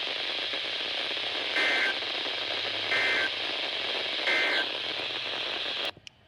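Weather radio broadcast hiss with three short bursts of warbling data tones a little over a second apart: the EAS end-of-message codes that close the severe thunderstorm warning. The signal then cuts off abruptly near the end.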